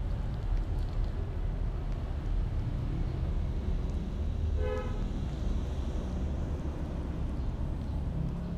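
Steady low rumble of distant traffic, with one short car horn toot about halfway through.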